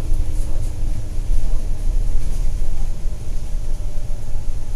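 Loud, low rumble of a moving bus's engine and road noise, heard from inside the cabin, with a faint steady hum in the first couple of seconds.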